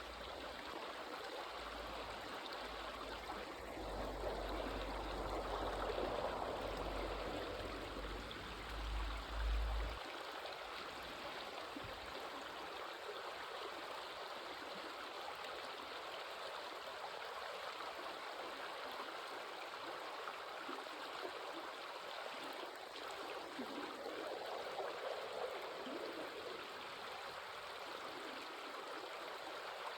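Stream water flowing steadily, swelling a little a few seconds in and again near the end. A low rumble underneath stops about ten seconds in.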